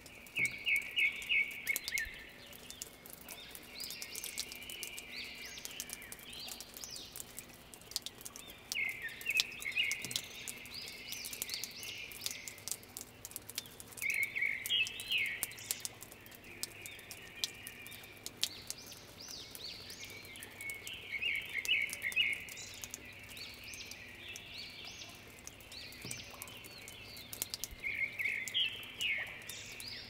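A songbird singing short phrases of rapid high notes, repeated every few seconds, over a faint steady low hum.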